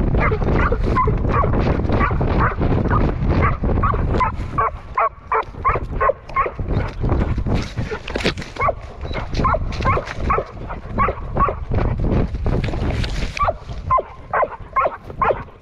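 A gun dog barking and yipping in quick succession, about two to three calls a second, while running through scrub. A heavy rumble of wind and movement on the microphone runs underneath.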